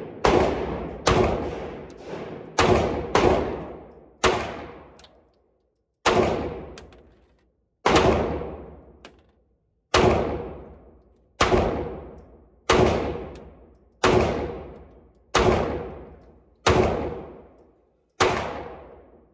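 FMK 9C1 Gen 2 9mm pistol firing about fifteen shots, a quick few at first and then a steady pace of roughly one every second and a half. Each report rings out in the echo of an indoor range.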